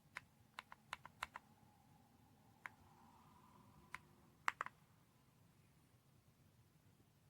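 Typing on an AULA F108 Pro mechanical keyboard: a quick run of about seven keystrokes, then a few scattered presses, ending with three in quick succession about two-thirds of the way through.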